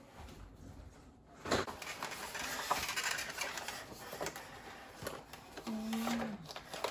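Nespresso capsule coffee machine brewing: after a sharp click about a second and a half in, its pump runs steadily for several seconds.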